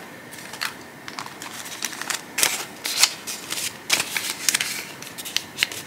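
Paper banknotes rustling and flicking as a small stack of one-dollar bills is handled and tucked into a cash envelope: a scatter of short, crisp crackles and snaps.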